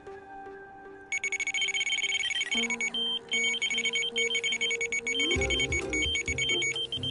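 Electronic carp bite alarm sounding in a fast, unbroken string of high beeps from about a second in, signalling a bite. Background music plays underneath.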